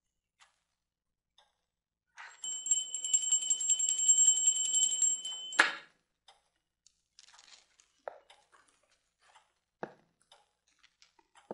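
A bell rings with rapid, evenly repeated strikes for about three and a half seconds, starting about two seconds in, and cuts off suddenly with a knock. A few faint knocks follow.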